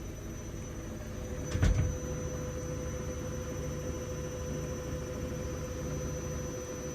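Hoover Dynamic Next DXC C49W3 washing machine on its spin cycle, heard from another room as a steady low rumble with a faint steady tone. One short thud about a second and a half in.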